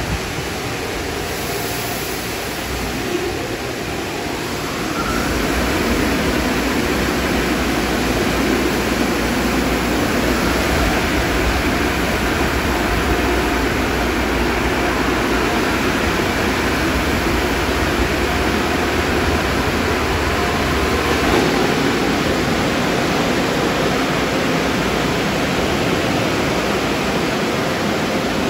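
Automatic tunnel car wash machinery running: water spraying and equipment in a steady rush of noise that gets louder about five seconds in.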